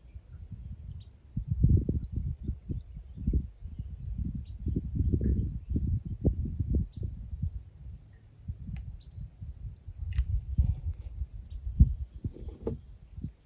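Insects droning steadily at a high pitch, with irregular low bumps and rustling of close handling as a soft plastic worm is rigged onto a fishing rod.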